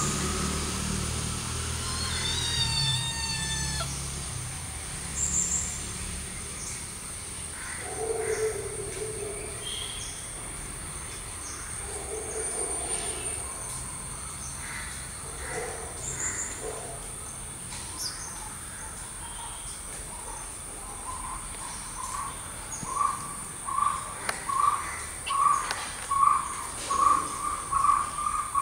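Forest ambience: a steady high insect drone with scattered bird calls, including a quick run of falling notes about two seconds in. From about twenty seconds in, a bird calls in an even series of notes, roughly one and a half a second, that grows louder toward the end.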